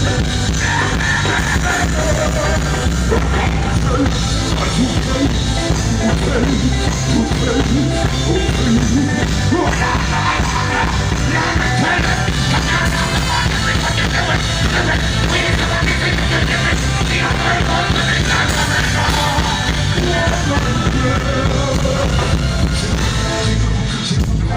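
Loud music with a singing voice and a heavy bass played over a PA during a sound check.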